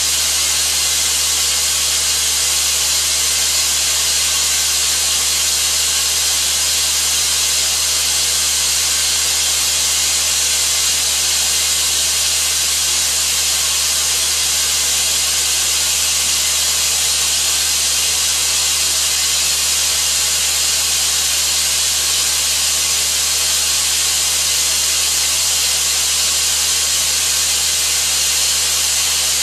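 Compressed-air-powered, explosion-proof Spillmaster 200 vacuum (120 cfm) running flat out, a loud, steady rushing hiss with a faint low hum underneath, as its hose sucks up barley grass powder.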